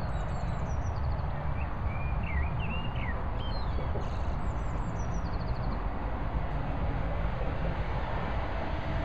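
Steady low outdoor rumble with small songbirds chirping and trilling over it, a few short bursts of song in the first half.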